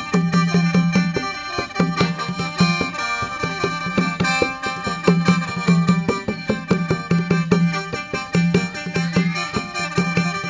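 Isan folk music: a khaen mouth organ holding many-voiced chords over a steady percussion beat.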